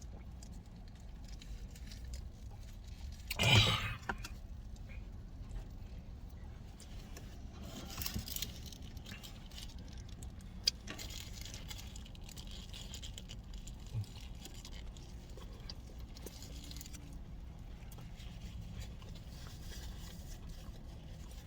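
Low steady hum inside a car cabin, broken by handling noises from eating fast food and a drink: one loud half-second rustle about three and a half seconds in, a smaller one around eight seconds, then a sharp click and a soft knock.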